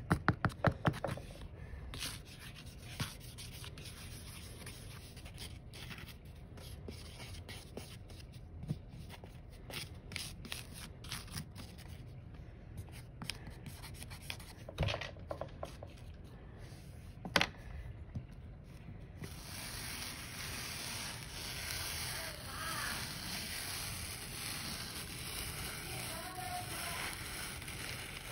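A pencil tapping and scraping through fine sand in a tray: a quick run of taps at the start, then scattered light clicks. About two-thirds in it gives way to a steady gritty rubbing as a polished stone is pushed through the sand.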